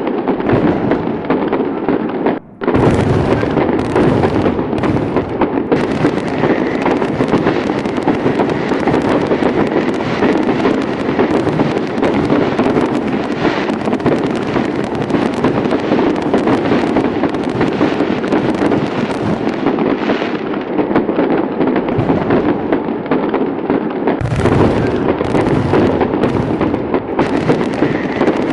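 Fireworks display: many overlapping bangs and pops running together into a dense, continuous crackle, broken once by a brief gap about two and a half seconds in.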